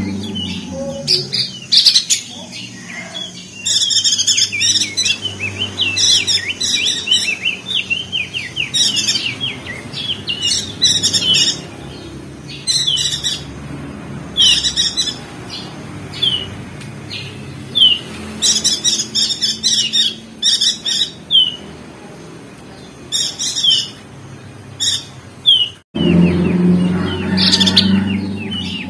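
Crested darkeye (opior jambul) singing in a rapid chattering song: bursts of quick, high, falling chirps a second or two long, repeated over and over with a few lone notes in between. The sound cuts out abruptly for an instant near the end.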